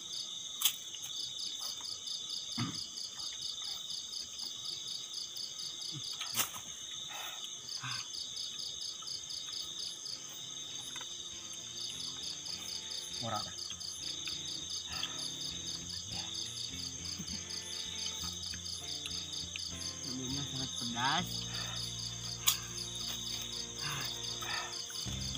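Chorus of night insects: a rapid, pulsing high trill that breaks off and starts again every few seconds over steady high-pitched shrilling. A few sharp clicks of dishes and utensils cut in, about a second in, around six seconds in and near the end.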